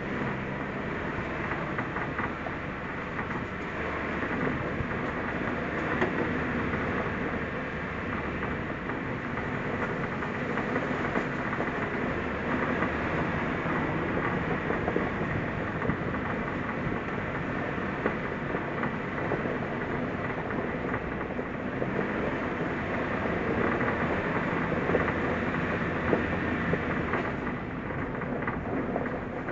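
New-model Suzuki Jimny on the move: a steady rumble of engine, tyres and road, with many small knocks and rattles through it.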